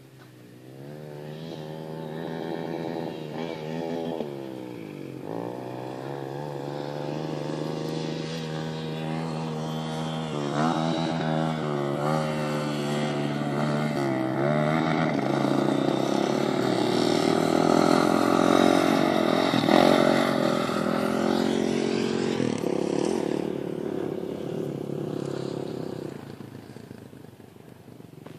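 Dirt bike engine revving, its pitch repeatedly climbing and then dropping as it shifts through the gears. It grows louder as the bike comes nearer and fades in the last few seconds as it moves away.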